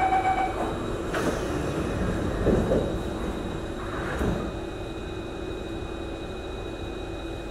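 Singapore MRT train's door-closing warning chime ending just after the start, then the sliding doors shutting with a sharp knock about a second in, followed by a couple of softer low thumps. The stationary carriage's steady electrical and air-conditioning hum continues throughout.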